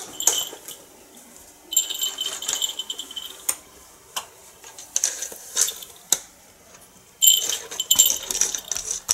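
A cat toy rattling and jingling as a cat paws it to and fro through the gap under a door, in two spells of a second or two, with light taps in between.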